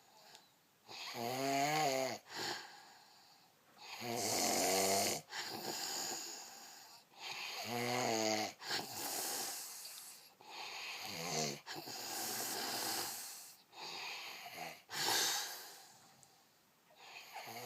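A person snoring heavily in deep sleep, in a slow repeating cycle every three to four seconds: a loud, buzzing, pitched snore, then a softer breathy rush of air.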